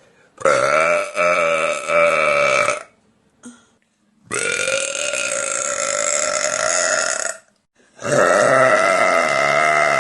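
A woman burping: three long, drawn-out burps of two to three seconds each, separated by short silences. The first breaks twice into shorter pulses, and the last runs on past the end.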